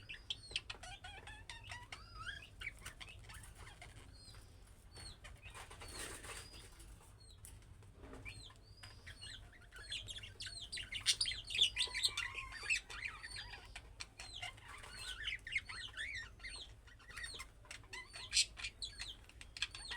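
Budgerigars chirping and warbling together in a rapid, continuous chatter of short high calls, busiest about halfway through and again near the end, with scattered sharp clicks.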